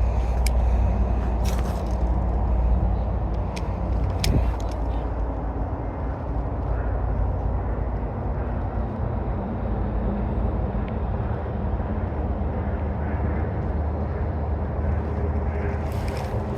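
Steady low rumble of wind buffeting the microphone, with a few sharp clicks in the first five seconds.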